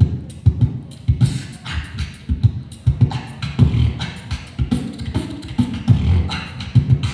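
Live beatboxing into a handheld microphone: a vocal drum groove of deep kick sounds about twice a second, with snare and hi-hat imitations between them.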